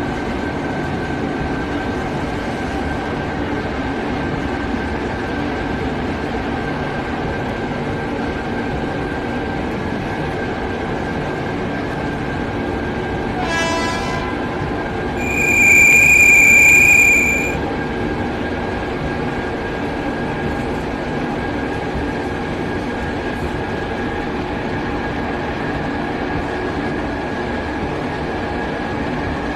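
Cab ride noise of an Indian Railways WAP-7 electric locomotive running at speed: a steady rumble with a constant thin whine. About halfway through there is a short tone, then a loud, high-pitched horn blast lasting about two seconds.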